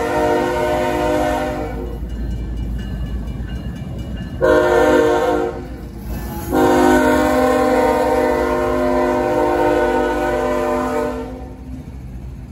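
Diesel locomotive's multi-chime air horn sounding for the grade crossing: a long blast that ends about two seconds in, a short blast near the middle, then a final long blast of about four and a half seconds. The low rumble of the locomotive's diesel engine runs underneath as it rolls through.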